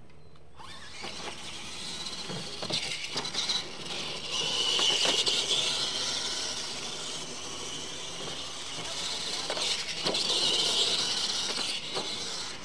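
Electric motors and gearboxes of two radio-controlled monster trucks whining as they race over dirt, starting about half a second in after the launch. The whine swells louder in the middle and again near the end as the trucks come close.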